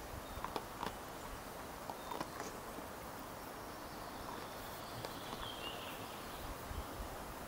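Quiet outdoor ambience: a faint steady hiss with scattered soft clicks and rustles, and a brief high chirp about six seconds in.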